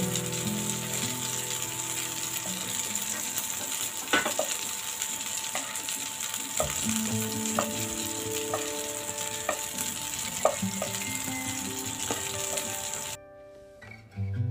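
Garlic cloves and fish pieces sizzling steadily in hot oil in a pan, with a few sharp clicks of a wooden spatula against the pan as the garlic is stirred and scooped out. The sizzling cuts off suddenly about a second before the end, leaving soft background music.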